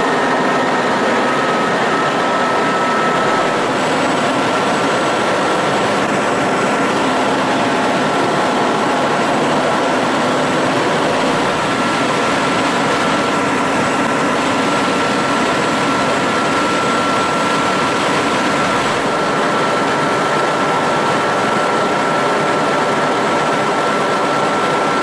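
High-speed passenger ferry running at speed: a loud, steady drone of engines and rushing water from the wake and spray, with a thin steady high whine throughout.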